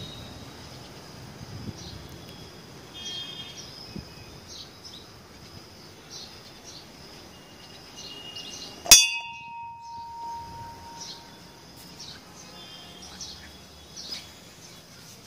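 A hanging temple bell struck once about nine seconds in: a sharp clang that rings on for about a second and a half. Birds chirp throughout.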